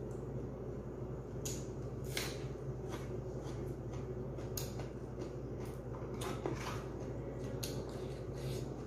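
A person chewing a mouthful of fresh leafy greens, with irregular short, crisp smacks and crunches. Under it runs a steady low hum.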